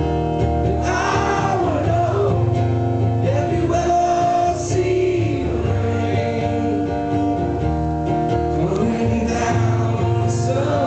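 Live acoustic performance: a man singing over a strummed acoustic guitar, with sung phrases about a second in, again around four seconds in, and near the end.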